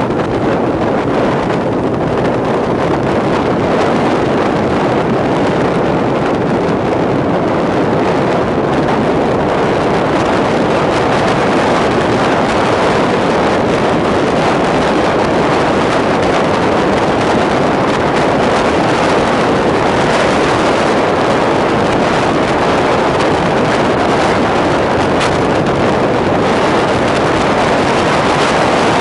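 Motorcycle riding at highway speed: steady wind rush over the microphone with engine and road noise beneath.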